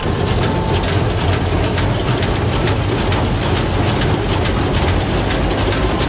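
Tractor-mounted combine harvester running as it cuts crop: a dense, steady mechanical clatter from the header and its belt and pulley drives, with rapid ticking over a low engine hum.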